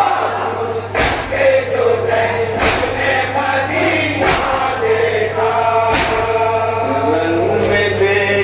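Men's chorus chanting a nauha (mourning elegy) in unison, with five heavy collective strokes of matam, the chest-beating of the mourners, falling in time about every second and a half.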